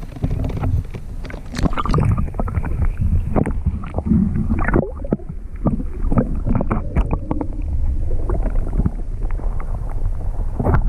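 Irregular knocks, clatter and handling noise aboard a fishing kayak, over a constant low rumble.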